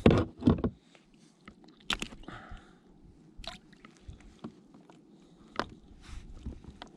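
Scattered knocks, clicks and light splashing on a fishing kayak while a small snapper is handled and unhooked, with a short watery rush about two and a half seconds in.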